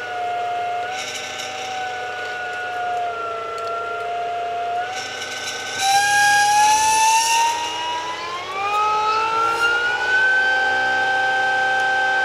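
HPM 5000 air-cooled 5 kW electric motor on its sine-wave controller spinning up under throttle, giving a steady electric whine. From about five seconds in the whine climbs in pitch as the shaft speeds up, then settles on a higher steady whine at close to 3,800 rpm. A brief airy hiss comes in around six seconds in.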